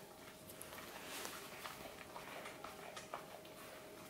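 Staffordshire bull terrier puppy chewing a slice of bread: faint, irregular small clicks and crunches, with one sharper click about three seconds in, over a faint steady hum.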